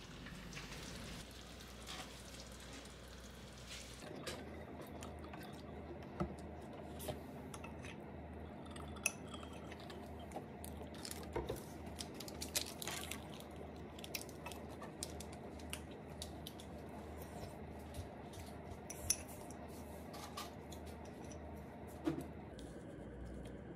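Kitchen cooking sounds: scattered light clinks and knocks of utensils against dishes and cookware over a faint steady background.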